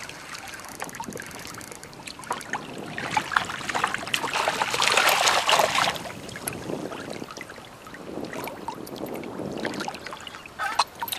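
Water splashing and lapping as a hooked northern pikeminnow is brought in at the surface by the rocks, with a louder stretch of splashing a few seconds in.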